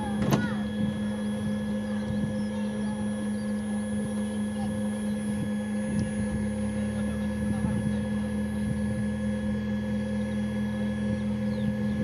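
Steady machine hum with one strong constant tone from around a parked De Havilland Canada Dash 8-300 waiting for engine start, its propellers not yet turning. A sharp click comes just after the start.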